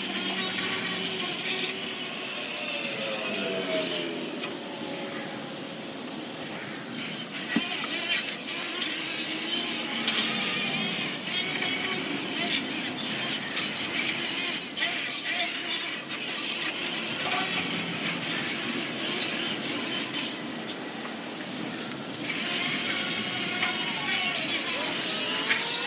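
Power wire wheel scrubbing surface rust off a steel truck frame: a harsh scraping hiss whose motor whine rises and falls with the load, easing off twice.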